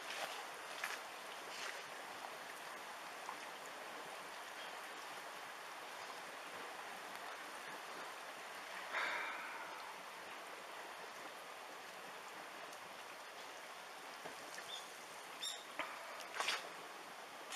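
Tsunami floodwater flowing steadily through a flooded street, a constant hiss of running water. A brief louder noise comes about halfway through, and a few small clicks and knocks near the end.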